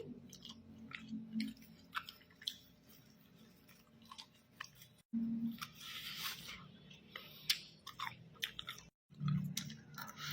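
A person chewing a meal of pancit canton noodles and fried chicken close to the microphone, with scattered mouth clicks and smacks. The sound drops out completely twice for a moment.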